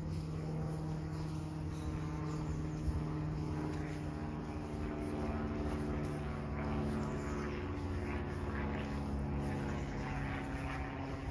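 Steady low engine drone that holds a set of low pitches, which shift slightly about halfway through.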